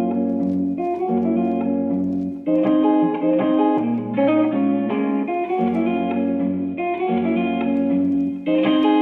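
Background music led by guitar, with chords changing about every one to two seconds.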